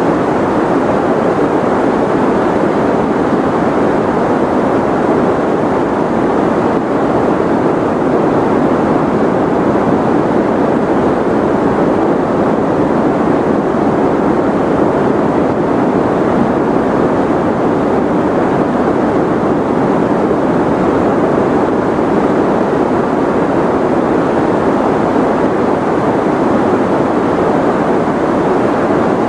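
Steady white noise for sleep: an even, unbroken rushing hiss that never changes, deep and soft rather than sharp, with little high treble.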